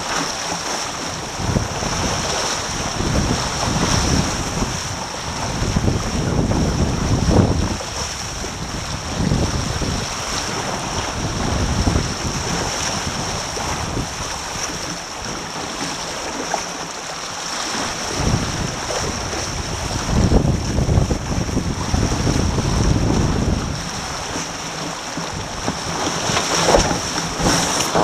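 Wind buffeting the microphone and water rushing past the hulls of a Taipan catamaran sailing at about ten knots. Gusts swell and fade every few seconds over a steady high hiss.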